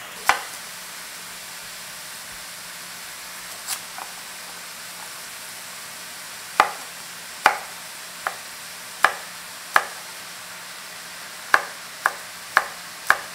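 Chef's knife chopping a carrot on a wooden cutting board: about ten sharp knocks, sparse at first and coming faster near the end, over the steady sizzle of oyster mushrooms frying in a hot pan.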